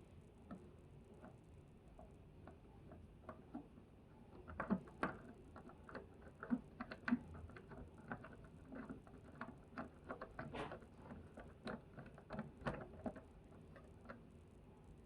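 Irregular small clicks and taps of hand work with a screwdriver, driving screws to fix a caster wheel to the base of a portable air conditioner; the clicking grows busier about four seconds in.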